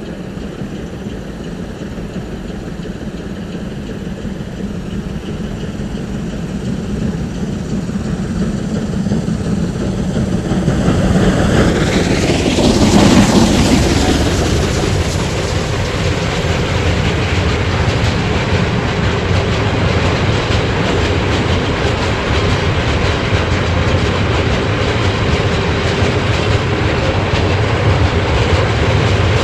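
DB class 043 oil-fired steam locomotive hauling a heavy iron-ore train. It grows steadily louder as it approaches and passes close by about halfway through with a falling sweep in pitch. Then the long line of loaded Fad ore wagons rolls past with a steady clickety-clack of wheels over the rail joints.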